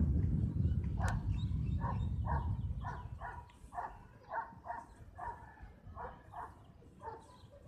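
A dog barking over and over, about two barks a second. A low rumble of wind on the microphone covers the first three seconds.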